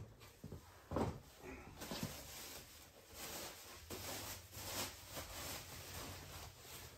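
Faint rustling and handling noises, with a soft knock about a second in.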